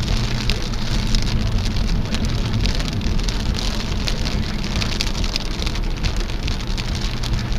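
Heavy rain falling on a car's roof and windscreen, heard from inside the car as a steady wash of noise with many sharp drop impacts, over a steady low engine hum.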